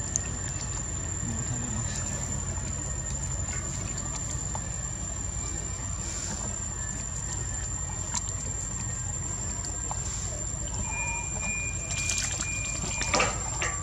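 Water sloshing and trickling as young long-tailed macaques wade and play in a shallow pond, with a louder splash about twelve seconds in as one leaps through the water. A steady high insect drone runs underneath.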